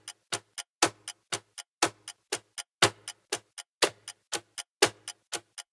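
Clock ticking, about four even ticks a second, used as a time-passing sound effect.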